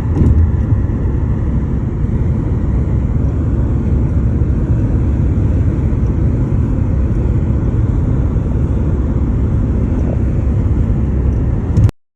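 Steady low rumbling outdoor noise with no distinct events, cutting off abruptly near the end.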